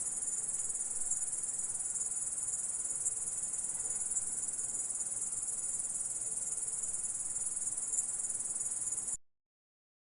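Grasshopper stridulating: a continuous, dense, high-pitched buzzing trill that cuts off suddenly about nine seconds in, leaving silence.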